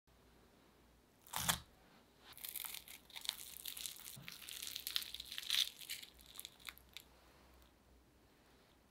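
Crisp breadcrumb crust of a fried potato and zucchini croquette crackling and crunching as it is pulled apart by hand. It starts with a single soft knock about a second and a half in, then comes a run of crackly crunches over the next five seconds.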